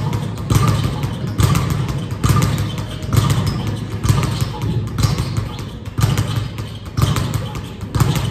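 A steady run of thumps, about one a second, each a low thud with a sharp slap on top that dies away before the next.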